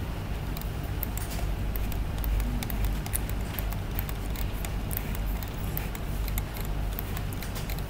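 Many small, irregular clicks and ticks from a computer mouse and its scroll wheel as the drawing is zoomed and panned, over a steady low hum.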